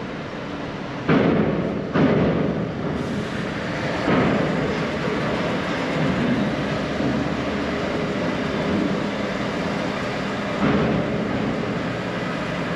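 An articulated lorry's engine running under low load as the truck rolls slowly onto a ferry's vehicle deck, heard from inside the cab as a dense rumble. Several heavy clunks come about one, two and four seconds in and again near the end, as the wheels cross the steel ramp and deck plates.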